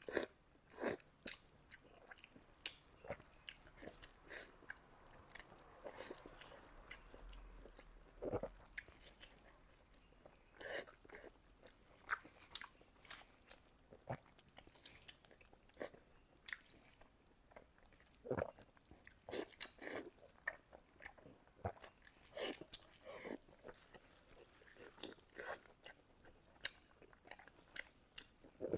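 Close-up mouth sounds of a person eating fatty pork belly: wet chewing and lip smacks, irregular short clicks a few times a second.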